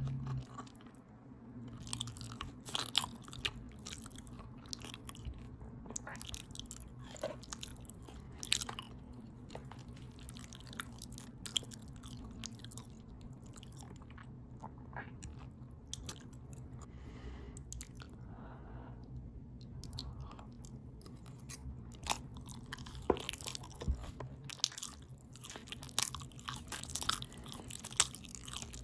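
Open-mouth chewing close to the microphone: irregular wet smacks and clicks of a mouthful of potato taco bowl being eaten.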